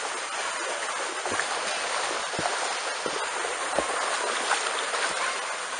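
Huskies wading through shallow pool water: steady sloshing, with a few small splashes.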